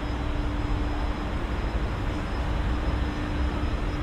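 Steady road traffic noise from a busy multi-lane elevated highway, with a constant low hum under it.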